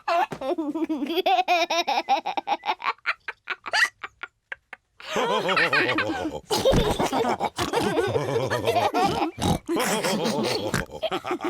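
Cartoon pig characters laughing, with piggy snorts. The laughter breaks into short bits, stops for about a second around four seconds in, then comes back louder as a group from about five seconds on.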